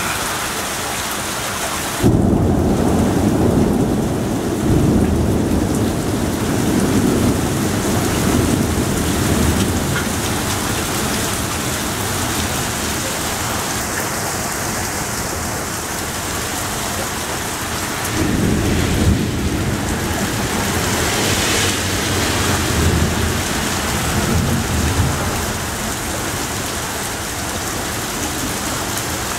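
Torrential rain pouring down in a steady heavy hiss, with two long rolls of thunder. The first breaks suddenly about two seconds in and rumbles on for several seconds; the second rolls in just past the middle and rumbles for several seconds more.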